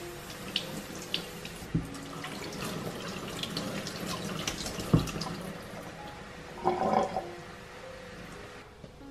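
Kitchen tap running, its stream splashing over hands as they rub a tomato and then a melon clean over the sink. A few knocks sound through it.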